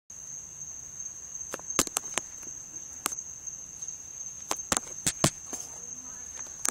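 Crickets trilling in one steady, high-pitched drone, with a scatter of sharp clicks and knocks, the loudest about two seconds and five seconds in.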